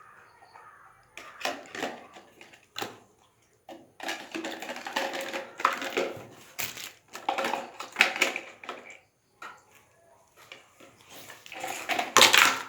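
Irregular rustling, crinkling and knocking of toys and packaging being handled, in uneven bursts with short pauses; the loudest burst comes near the end.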